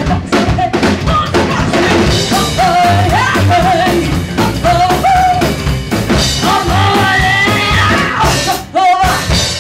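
Live band playing: a woman singing into a microphone over an upright double bass, an electric guitar and a drum kit.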